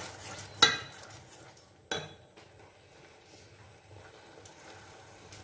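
A plastic spatula stirring tomato sauce in a stainless steel saucepan, with two sharp knocks against the pan, about half a second and two seconds in. After that there is only a faint, quiet background.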